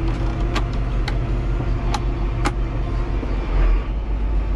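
Farm tractor engine running with a steady low drone as the machine creeps forward. Four sharp clicks come in two pairs during the first half.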